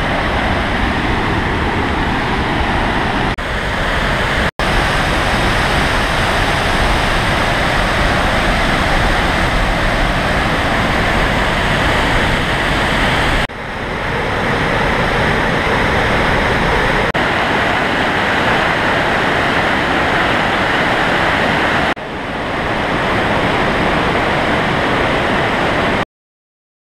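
Mountain waterfall and whitewater torrent rushing: a loud, steady rush of falling and tumbling water, broken by abrupt cuts a few times and stopping suddenly near the end.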